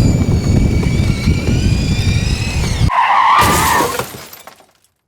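Ride-on toy car rolling, with a steady rumble from the wheels and a high electric motor whine that slowly drops in pitch. It cuts off abruptly about three seconds in, followed by a brief screech that fades away.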